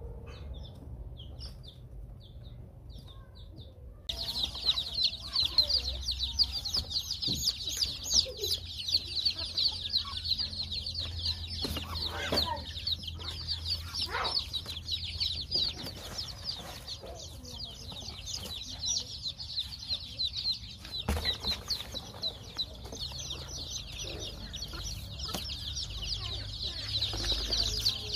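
Newly hatched chicks peeping: a few sparse high peeps, then from about four seconds in a dense, continuous high-pitched chorus of many chicks, with a few lower calls mixed in.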